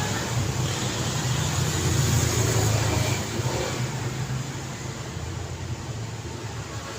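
Street traffic: a vehicle's engine and tyres rumble past, loudest about two seconds in and then fading away, over the steady hum of road traffic.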